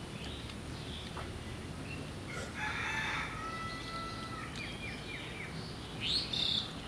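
A rooster crowing once, a long drawn-out call starting about two and a half seconds in, with a short, higher bird call near the end.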